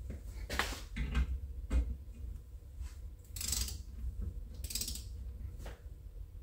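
Ratchet head of a click-type torque wrench clicking in about six short bursts while screws on a Ford 7.3L Godzilla VCT phaser are tightened to about 16 newton metres.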